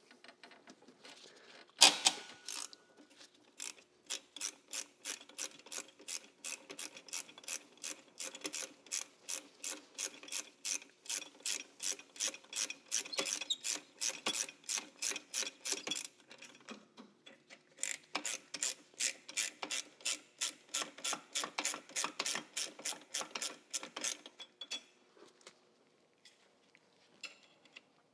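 Hand ratchet clicking as 14 mm bolts holding an AC compressor are backed out: about three clicks a second in two long runs with a short pause between, after a single sharp crack about two seconds in.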